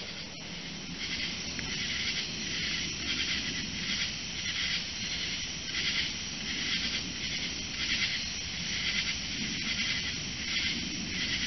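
Night insects chorusing in an even pulsing rhythm, about two pulses a second, with a low rumble underneath.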